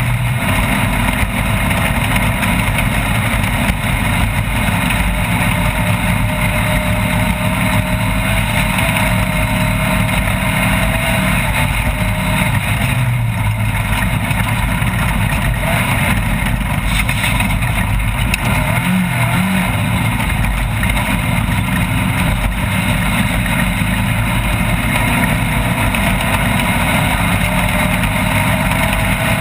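Off-road race vehicle's engine running hard and steadily. Its pitch drifts slowly up and down with the throttle over a constant heavy rush of noise.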